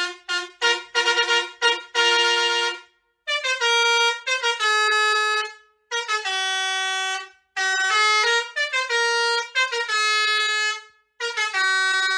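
Bus telolet musical horn, Basuri type, playing a fast tune in phrases of changing notes, quick short notes at first and then longer held ones, with brief breaks between phrases.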